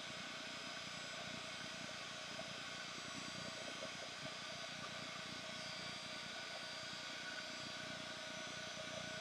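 Heat embossing gun running steadily, its fan blowing with a faint steady whine, melting silver embossing powder on a stamped paper bow.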